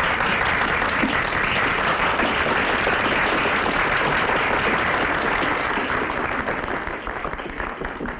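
Crowd applauding, a steady dense clatter of clapping that dies down near the end.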